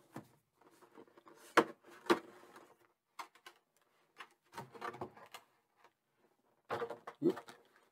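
Clear plastic blister-pack packaging being handled and pulled apart. There are two sharp plastic snaps about a second and a half in, then short bursts of crinkling and clicking around five and seven seconds.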